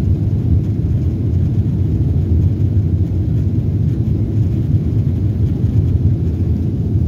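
Airliner cabin noise in flight: the steady low rumble of the jet engines and airflow heard inside the passenger cabin.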